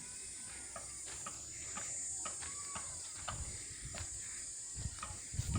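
Steady high chirring of crickets or other insects, with faint scattered clicks and a few short bird chirps; a low rumble builds near the end.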